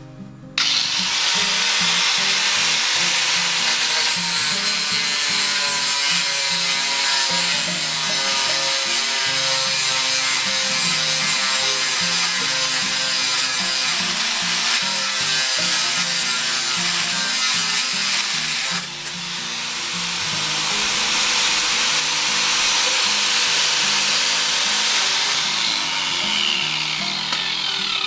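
Electric angle grinder running with its abrasive disc grinding against the metal of a pair of pruning shears, a loud gritty hiss over a steady motor whine. It eases off briefly about two-thirds of the way through, then winds down in pitch near the end as it is switched off.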